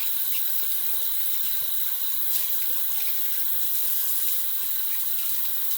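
A tap runs steadily into a sink while a shaving soap puck is rinsed clean under it.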